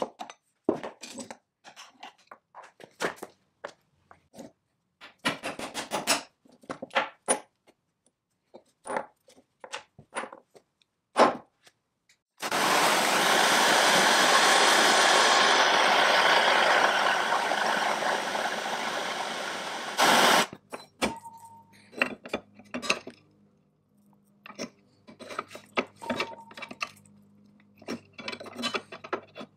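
Hand file stroking over a clamped steel part, a run of separate scrapes, then a gas torch flame hissing steadily for about seven seconds before it is shut off suddenly. Light metal clicks and taps follow as the small parts are handled.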